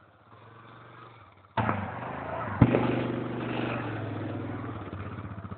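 Yamaha Grizzly 700 quad's single-cylinder four-stroke engine, quiet at first, then loud under throttle from about a second and a half in, with one sharp loud thud a second later. The engine then runs on and fades to an even, pulsing beat near the end.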